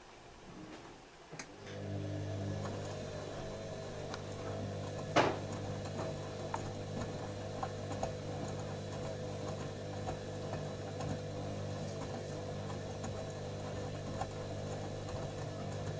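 Panasonic front-loading washing machine's drum motor starting up about two seconds in and turning the drum of wet laundry with a steady hum. Light ticks run through it, with one sharp click about five seconds in.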